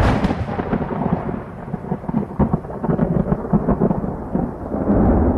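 A loud, continuous low rumble with crackling through it, with no speech or music.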